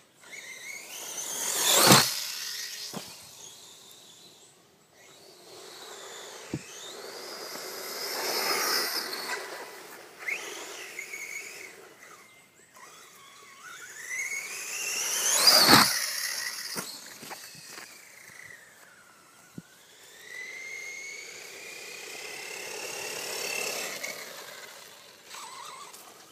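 Electric motor of a DF-Models Speedfighter 2 RC buggy whining, rising and falling in pitch as it speeds up and slows. It passes close by twice, loudest about two seconds in and again past the middle. There are a few short knocks in between.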